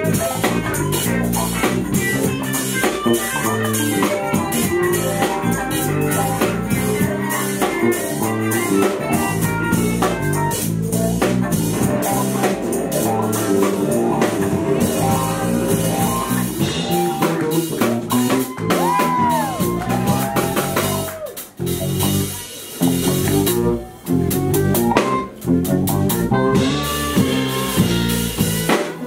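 Live instrumental funk-jazz band playing: drum kit, electric guitars and a soprano saxophone. Bent notes come in about two-thirds of the way through, followed by a few brief stops near the end.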